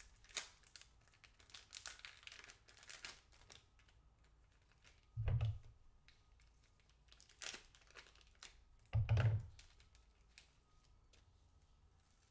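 Thin plastic packaging crinkling and crackling with small clicks as it is handled and cut open with a knife, with two louder dull knocks about five and nine seconds in.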